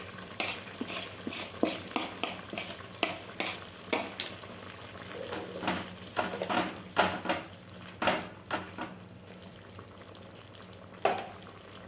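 Spoon stirring in a cooking pan, clicking and scraping against it in quick irregular strokes that die away about nine seconds in, with one more knock near the end.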